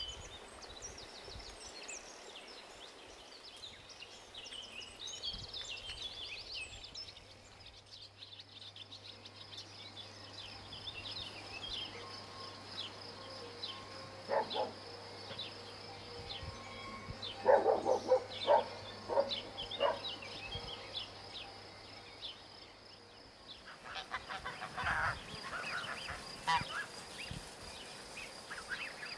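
Small birds chirping, with a steady high note behind them, and a few groups of short, loud animal calls about halfway through and again near the end.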